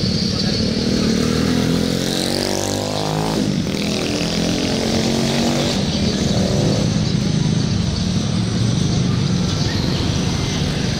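Street traffic: a motor vehicle engine revs up and passes about two seconds in, and a second one passes a few seconds later, over a steady low engine rumble.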